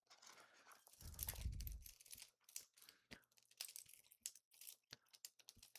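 Faint handling noises of tools being put into a tool bag: scattered small clicks and knocks with rustling, and a soft low thump about a second in.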